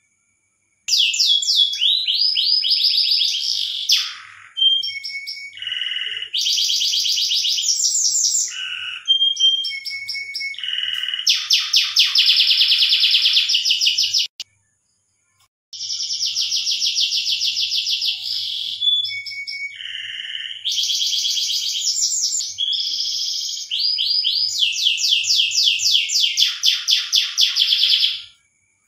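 Domestic canary singing its breeding song: long runs of fast trilled phrases, each a rapid string of repeated notes, broken by a pause of about a second midway.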